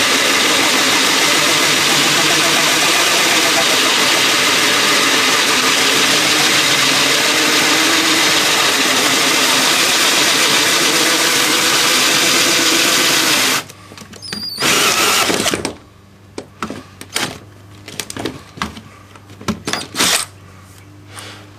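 Cordless drill driving a hole saw up through the fiberglass hull bottom, enlarging the keel hole: a steady loud cutting whir that stops suddenly about two-thirds of the way through. A short second burst of drilling follows, then scattered clicks and knocks.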